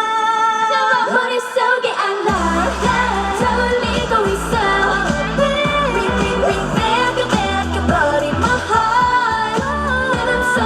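K-pop dance-pop song with a girl group singing over the backing track. The bass and beat drop out for about the first two seconds while the vocals carry on, then come back in at full level.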